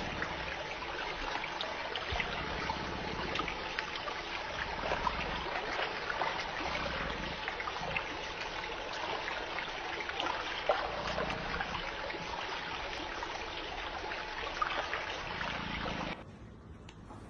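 Steady hiss and patter of water spraying from the rim jets of an inflatable sprinkler splash pad. It cuts off suddenly near the end.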